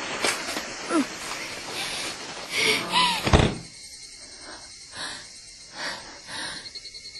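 Knocking and clattering of junk and scrap being shifted, with a heavy thud about three seconds in.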